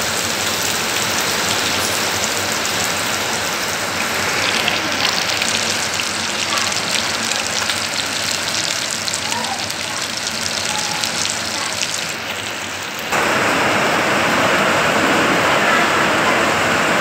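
Whole fish frying in hot oil in a pan, sizzling with many fine crackles. For the last few seconds the sizzle turns louder and steadier.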